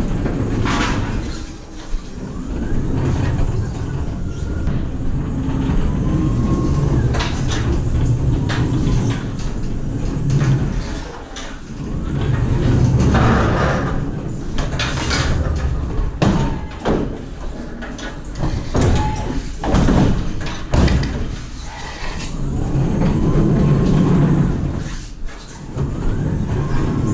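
BT Staxio electric pallet stacker manoeuvring inside a metal trailer box: its electric drive motor whines up and down in pitch over a low rumble of the wheels on the checker-plate floor. Sharp knocks and clatters of metal and plastic pallets, thickest in the second half, ring off the metal walls.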